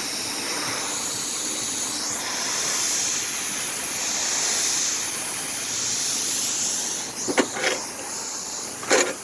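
Refrigerant (Freon) hissing steadily out of a window air conditioner's cracked copper discharge line, the unit being bled of its charge. Two or three sharp knocks sound near the end.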